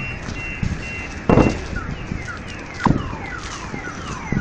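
Car alarm sounding, likely set off by the meteor's shock wave. It beeps steadily at first, then from about a second and a half in changes to a repeating run of quick falling whoops. Three loud thumps come about a second and a half apart, the first the loudest.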